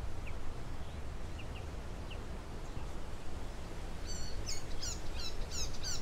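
Wild songbird calls: a few faint chirps, then from about four seconds in a quick series of sharp, high notes, each falling in pitch, over a steady low background rumble.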